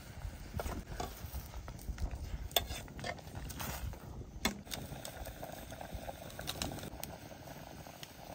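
Pot of bamboo-shoot curry bubbling on the fire, with scattered clicks and knocks of a utensil against the pot as seasoning is stirred in.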